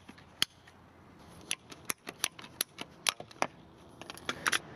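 Ratcheting PVC pipe cutter cutting through a 1.5-inch PVC pipe: a string of sharp, uneven clicks as the handle is squeezed, two at the start and most of them from about one and a half seconds in.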